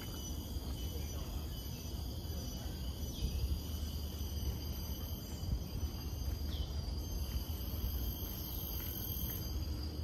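Steady high-pitched insect chorus in mangrove forest, with two short falling bird calls about three and six and a half seconds in, over a low rumble of wind.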